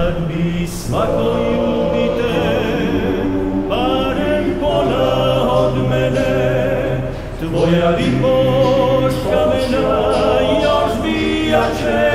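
Vocal music: a choir singing in harmony, with long held chords that change every few seconds.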